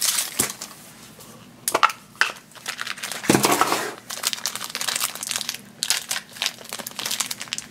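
Thin plastic wrapping crinkling and crackling in the fingers as a small blind-bag toy capsule is unwrapped, with a louder stretch of crinkling about three seconds in.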